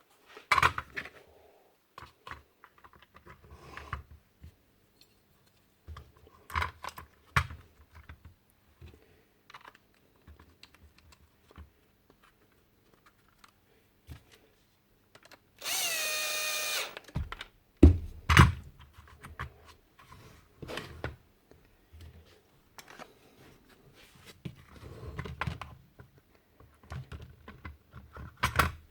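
Tools and small parts being handled on a workbench: scattered clicks, taps and knocks. Midway a small electric power tool runs for about a second and a half with a steady whine, followed by a heavy thump.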